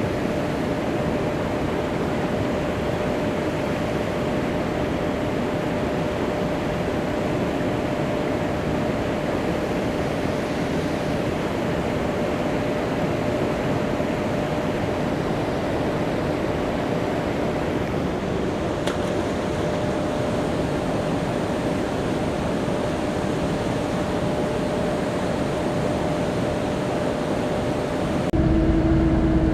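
Boat motor running steadily: an even drone with a steady hum through it. About a second before the end it changes abruptly to a louder, deeper engine sound.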